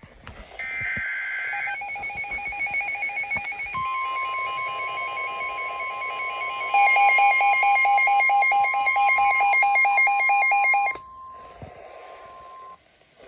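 Emergency alert tones of a severe thunderstorm warning: the steady single-pitch NOAA Weather Radio warning alarm tone runs for about nine seconds, starting a few seconds in. Over it, rapid pulsing electronic alarm beeps get louder about seven seconds in and cut off suddenly about two seconds before the steady tone ends.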